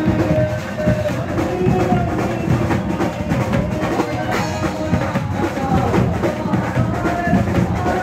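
Live garba music played by a band through loudspeakers: drums and percussion keep a steady dance beat under a man singing into a microphone.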